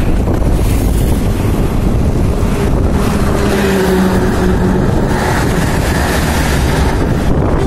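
Passenger train running at speed: a steady rumble with strong wind buffeting the microphone held out of the carriage window.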